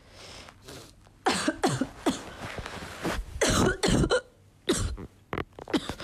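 A woman coughing: a string of short, sharp coughs with some throat clearing, starting about a second in.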